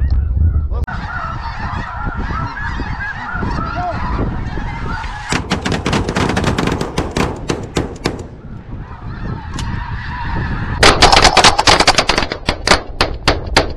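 A large flock of snow geese calling overhead in a steady clamour. About five seconds in, a volley of rapid shotgun fire breaks out from several semi-automatic shotguns, and a second, louder burst of sharp cracks mixed with goose calls comes near the end.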